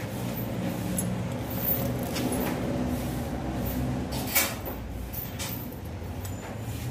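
Honda PCX 160 scooter's single-cylinder engine idling with a steady low rumble, with a few sharp clicks and knocks, the loudest about four and a half seconds in.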